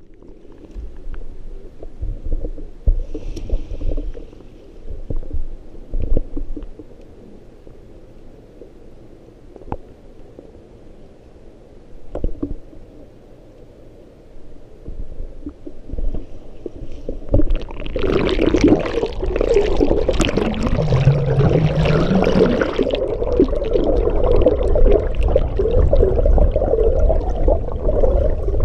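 Muffled underwater sound heard through a submerged camera: scattered low knocks and thuds at first, then, from a little past halfway, a loud churning rush of water and bubbles as a swimmer strokes and kicks freestyle close past.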